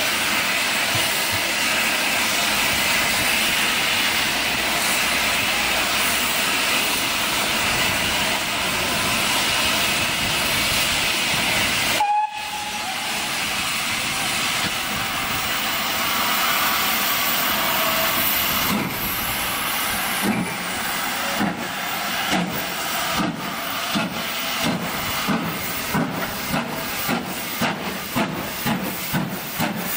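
GWR Hall class steam locomotive No. 4936 hissing steadily as it stands with its train, then starting away: from about twenty seconds in its exhaust beats come regularly and gradually quicken as it gathers speed, with steam blowing from its front end.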